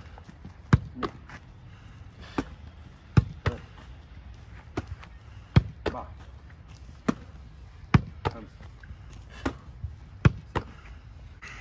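A leather football repeatedly volleyed from the hands and caught in a goalkeeper's gloves: sharp thuds, mostly in close pairs a fraction of a second apart, one pair about every two and a half seconds, with single thuds between them as the ball comes back.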